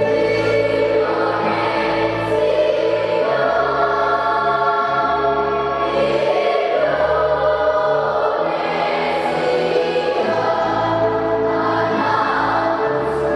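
Children's choir singing long held notes over a low accompaniment whose bass notes change every few seconds.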